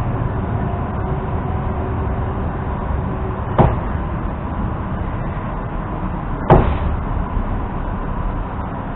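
EP2D electric multiple unit running between stations, heard from inside the car as a steady rumble. Two sharp knocks cut through it, one about three and a half seconds in and a louder one about six and a half seconds in.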